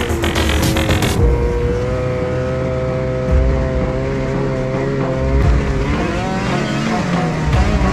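Snowmobile engine running at a steady speed, its pitch wavering briefly around six seconds in.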